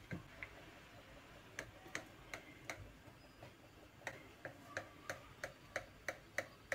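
Knife clicking against a glass baking dish as a soaked chocolate cake is cut into squares. The clicks are faint and short, scattered at first, then come about three a second from about four seconds in.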